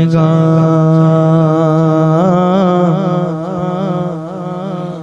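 A man's singing voice holds one long, drawn-out vowel of an unaccompanied naat, wavering slightly in small ornaments. It fades gradually over the last two seconds.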